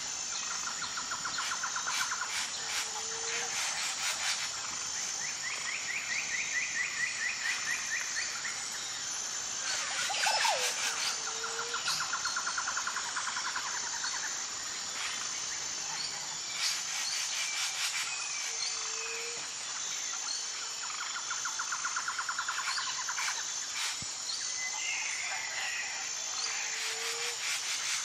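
Nature ambience of birds calling in repeated trills over a steady, fast-pulsing high insect chirr. A short low call recurs about every eight seconds, and a quick whistled glide comes about a third of the way in.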